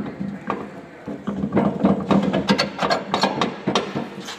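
Rapid metallic clicking and clattering as a two-post car lift's swing arm is worked on its pivot, at the toothed arm-lock gear, over a steady low hum. The clicking is densest from about a second in until near the end.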